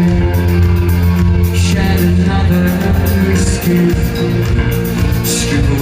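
Live rock band playing loudly through a concert PA, with sustained bass and guitar chords under the drums and a couple of cymbal crashes.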